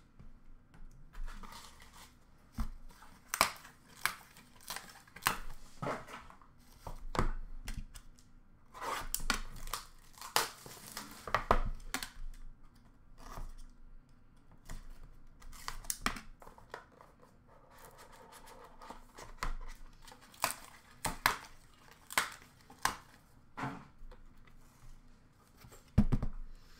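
Trading cards and hard plastic card cases being handled and set down on a counter: irregular clicks, taps and rustling of cards and packaging, with a louder knock near the end.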